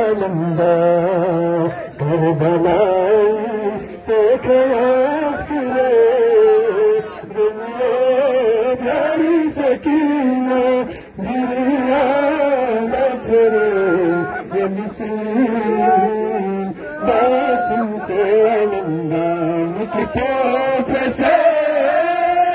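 Male voices chanting a noha, a Shia mourning lament, in a wavering, melismatic melody, with short breaks between phrases.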